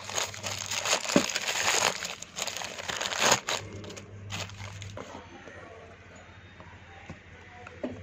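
Thin plastic spare-parts bag crinkling and crackling as it is handled and opened. It is loudest in the first three and a half seconds, then fades to a low hum with a couple of faint clicks near the end.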